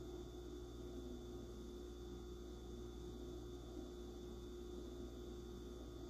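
Faint steady electrical hum with a couple of constant tones over a soft hiss: room tone, with no sound from the candle itself.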